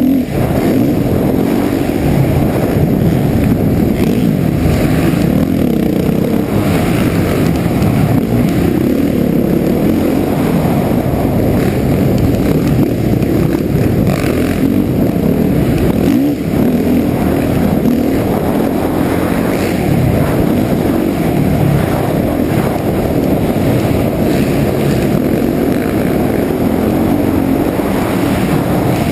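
Suzuki RM-Z450 single-cylinder four-stroke motocross engine running hard under racing throttle, rising and falling as the rider accelerates and backs off for corners, with a brief drop about halfway through. Heard close up from a helmet-mounted camera.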